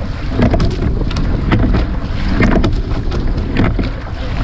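Rowing shell underway: oars splashing and knocking in a steady stroke rhythm, over water rushing along the hull and heavy wind on the microphone.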